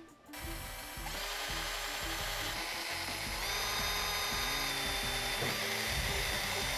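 Cordless drill with a 1/8 inch bit running steadily as it drills bolt holes through a truck grille framework. Its whine steps up in pitch about halfway through.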